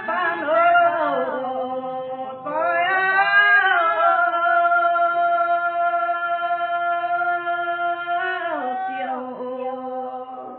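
Women singing a Red Dao hát lượn folk song unaccompanied, in long held notes that slide down in pitch at the ends of phrases.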